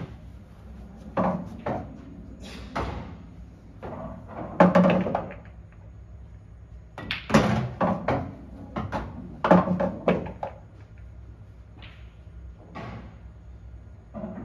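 Pool balls on an English pool table: a string of sharp clacks and knocks from cue and balls striking, with heavier thuds and short rumbles as potted balls drop and roll through the table's internal ball-return channel.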